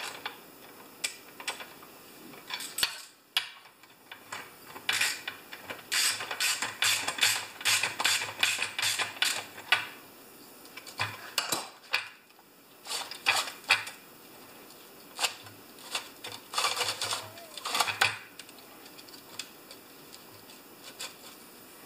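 Hand work on a chainsaw's metal parts: runs of quick metallic clicks, several a second, mixed with clinks and knocks of steel tools. The work goes on while a catch in the saw is being hunted down.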